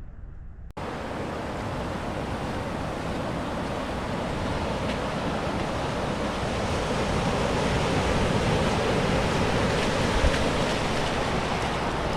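Steady rush of ocean surf with wind. It starts abruptly a little under a second in and slowly grows louder.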